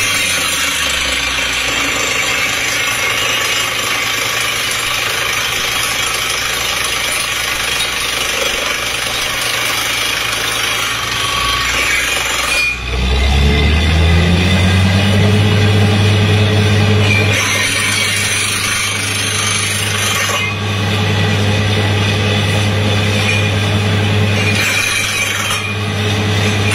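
Truck-mounted water well drilling rig running under test: a loud, dense, noisy machine sound. About thirteen seconds in the engine note dips briefly, then climbs in pitch as the engine speeds up and holds at the higher speed.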